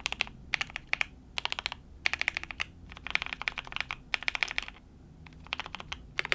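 Typing on a mechanical keyboard with linear switches, in quick runs of sharp keystroke clacks with short pauses between them; the board has a PE foam and tape mod.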